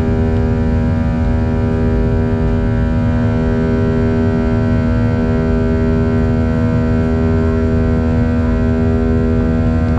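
Boeing 737-800's CFM56-7B turbofan engines at climb power, heard from inside the cabin beside the wing: a loud, steady low rumble under the fan's buzzsaw, a chord of many steady tones at once.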